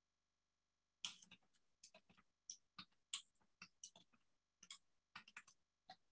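Faint, irregular clicking of computer keys, some single taps and some quick runs, starting about a second in.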